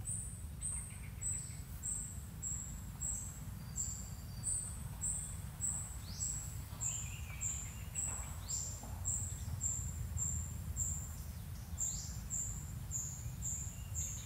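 Forest ambience: a short, high chirp repeating evenly about two to three times a second, with a few other bird calls sweeping down in between. A steady low rumble sits underneath.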